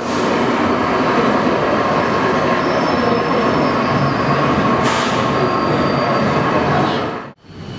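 A train running on rails: a steady rush of wheel-and-rail noise, with thin high squealing tones that come and go in the middle. It breaks off abruptly near the end.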